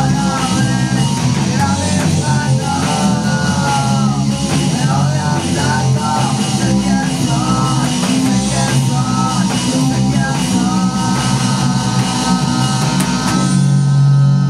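Rock band playing live in a small rehearsal room: electric bass, guitar and drum kit with cymbals under a sung vocal. About ten seconds in, a long held note rings on over the band.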